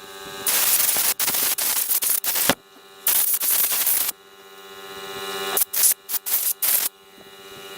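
Makita CL182FD 18 V cordless vacuum's motor fan running with a steady whine, broken three times by a loud, harsh rasping noise lasting a second or two. This is the abnormal motor-fan noise that the owner thinks may mean the motor is at the end of its life.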